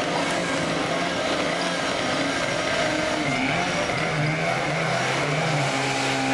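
A small engine running hard with a steady hum, its pitch shifting up and down for a moment partway through before settling; at this event it is most likely a portable fire pump's engine driving water through the hoses.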